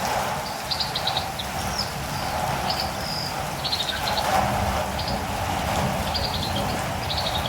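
Catirumbava birds calling in short quick bursts of three to five high chirps, roughly once a second, over a steady hiss of rain.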